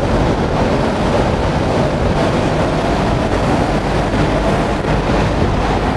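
Hurricane-force wind in a wind tunnel at over 80 mph: a loud, steady rush of air buffeting the microphone.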